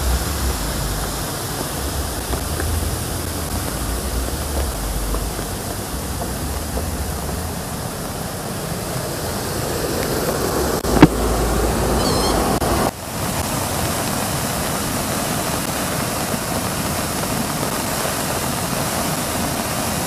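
Steady rushing of a waterfall swollen by heavy rain, mixed with falling rain, with one sharp knock about eleven seconds in.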